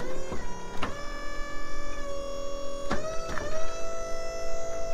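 Background music: sustained electric guitar chords ringing out, with a new chord struck about a second in and another about three seconds in.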